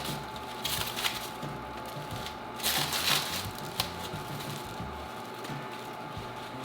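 A shipping package being opened by hand: packaging crinkling and tearing in two main bursts, about a second in and again around three seconds in, with a sharp click shortly after.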